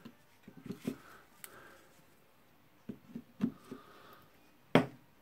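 Pliers tightening a screw-in plastic part into the aluminium housing of a rotary hammer drill: scattered small clicks and faint creaks of tool on part, with one sharper knock near the end.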